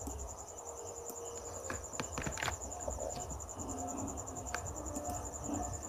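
A cricket chirring steadily in the background, a high rapid pulsing trill, with a few faint clicks about two seconds in and again after four seconds.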